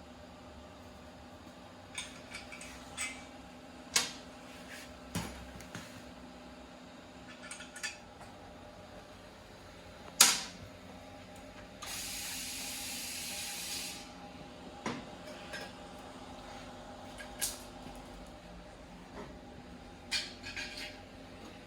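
Scattered clinks and knocks of hand tools on motorcycle metal during a teardown, with one steady hiss lasting about two seconds around the middle, over a faint steady shop hum.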